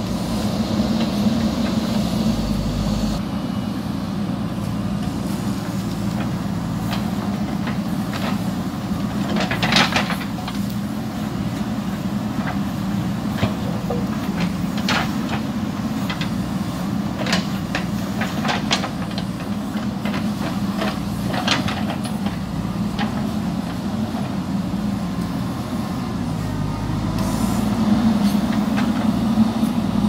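JCB backhoe loader's diesel engine running steadily while the backhoe bucket digs into stony soil. Scattered sharp knocks and clatters of the bucket on stones come through the middle. The engine grows louder near the end as it works harder.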